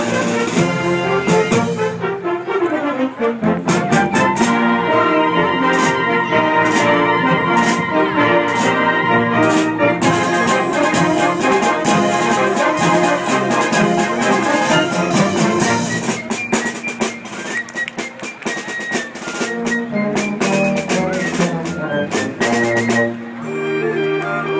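Band music with brass and drums playing steadily.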